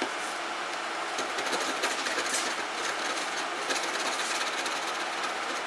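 Flathead screwdriver scraping leftover white glue and glass fragments from the back of an iPhone 5: a continuous scratchy scrape with small irregular clicks.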